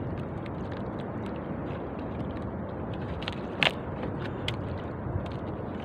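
Steady low noise of open water and light wind around a small outrigger canoe, with scattered light clicks and one sharper click about three and a half seconds in as a fishing handline and bait are handled.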